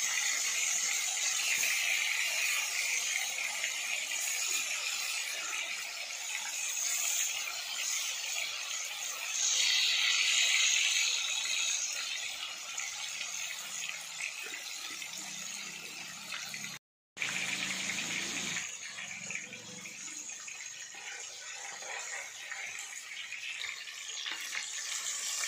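Fish steaks deep-frying in hot oil in a wide iron pan, a steady sizzle. It breaks off for a moment about two-thirds of the way through and comes back a little quieter.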